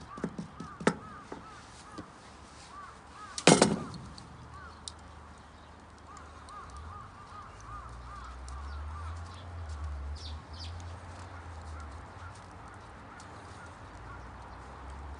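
A few light knocks, then one loud, sharp knock about three and a half seconds in, over steady, rapidly repeated small chirping calls and a low rumble in the background.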